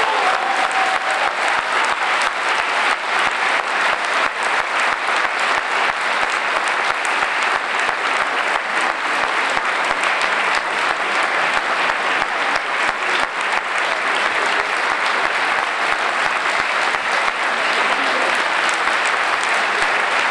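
Audience applause: a steady wash of many hands clapping. A last held note from the band dies away in the first second.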